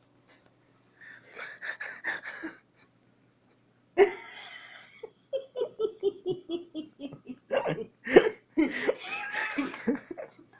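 A person laughing hard in several fits, with a rapid run of short ha-ha pulses about halfway through.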